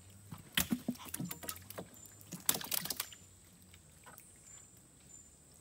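Gill net being hauled in over the side of a wooden boat and a fish worked free: quick splashes, drips and knocks in two bursts, one near the start and one around the middle.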